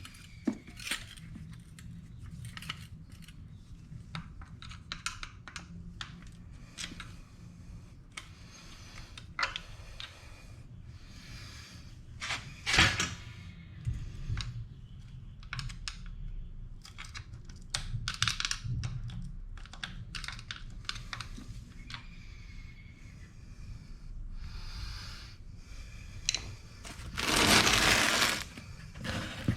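Hand tools and small metal parts clicking, tapping and clattering at irregular intervals as an electric scooter's front wheel is taken off, with a louder knock about halfway through and a longer, louder scraping rustle near the end.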